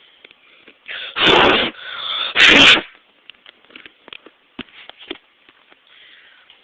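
Two loud, explosive bursts from a person's mouth or throat, about a second apart, close enough to the microphone to overload it, followed by faint clicks.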